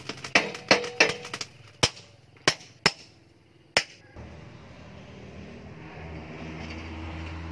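A blacksmith's hand hammer striking a red-hot steel knife blank on an anvil: about seven sharp blows, some ringing briefly, over the first four seconds. Steady background music takes over after that.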